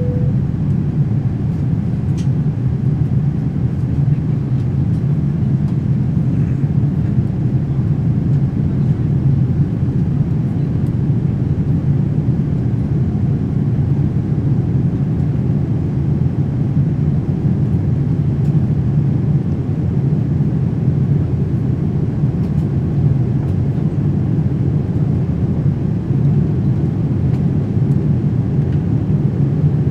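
Steady cabin noise inside a Boeing 787-9 climbing out after takeoff: its General Electric GEnx engines and the airflow past the fuselage make an even, low rumble. A short single tone sounds right at the start.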